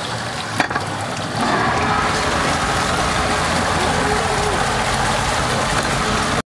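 Speedboat engine running at low speed, with water washing along the hull as the boat moves slowly. A sharp click comes about half a second in, the engine and water noise get louder about a second and a half in, and the sound stops abruptly at the end.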